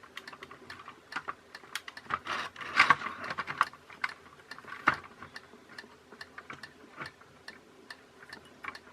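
Irregular light clicks and taps of small plastic parts being handled on a disassembled toy train, with a short scraping rustle about two and a half seconds in.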